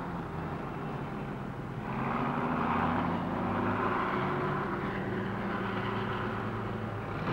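Heavy wheel loader's diesel engine running steadily with a deep drone, growing louder about two seconds in as the loader raises its bucket and dumps rock into a haul truck.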